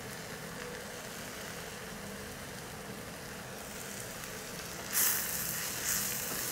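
Cabbage fry sizzling softly in a nonstick kadai. About five seconds in, a wooden spatula starts turning the cabbage and grated coconut, adding louder scraping, rustling strokes.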